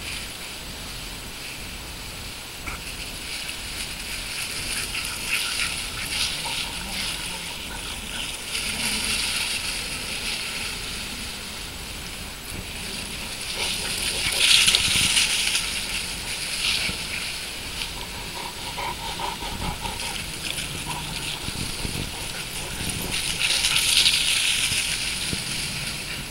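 Dogs running and scuffling through dry fallen leaves: a crunching rustle that comes and goes, loudest about halfway through and again near the end as they pass close.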